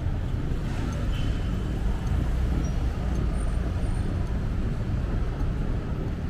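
Steady low rumble of city street traffic, with cars passing close by.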